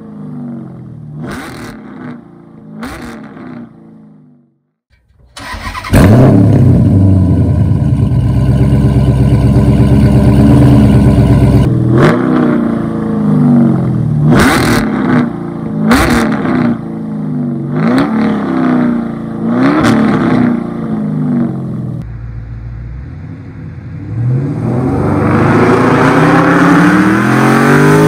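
Stroked 6.5-litre Hemi V8 with a loud custom exhaust, revved repeatedly with the pitch rising and falling. After a short break it runs loud and steady, then comes a series of sharp free revs, and near the end a long rise in pitch as it accelerates.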